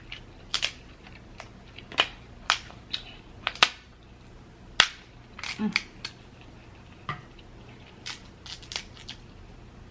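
Crab leg shells being cracked and snapped apart, about a dozen sharp cracks and crunches at irregular intervals.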